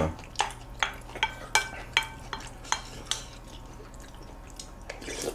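A spoon stirring and tapping in a glass bowl of sauce: a run of short clinks, some ringing briefly, every half second or so for about three seconds, then fainter scrapes and ticks, under a low steady hum.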